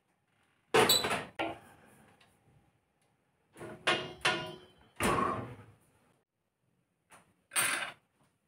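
Oven door shut with a loud knock about a second in, then a few clicks and a second knock around five seconds in as the door handle is worked, and one more short knock near the end.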